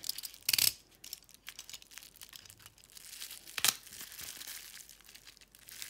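Bubble wrap crinkling and tearing as a taped bubble-wrap package is cut open, with two short loud rips, one about half a second in and one about three and a half seconds in.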